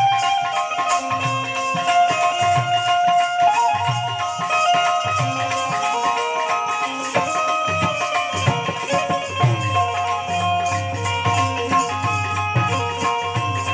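Live folk devotional music: sustained melody notes over a regular drum beat, with jingling percussion.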